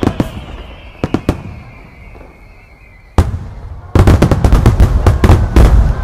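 Aerial firework shells bursting: a few separate booms over a long falling whistle, then a big burst about three seconds in. From about four seconds a starmine barrage fires, with bursts in quick succession.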